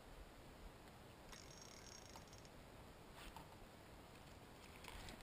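Near silence: faint background with a couple of faint clicks.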